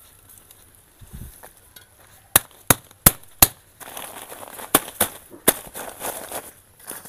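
Hands working in dry soil, compost and leaf litter: about seven sharp cracks and snaps in quick succession, then steady rustling and crackling of the dry material being handled.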